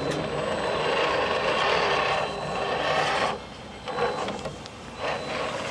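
Radio-controlled scale crawler truck working its way over sand and dirt, with a steady scraping, grinding noise. The noise drops off about three seconds in, then comes back in shorter spells.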